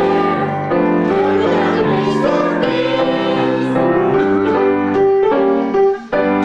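A roomful of people singing a Christmas carol together, accompanied on Steinway piano. The sound drops out briefly near the end.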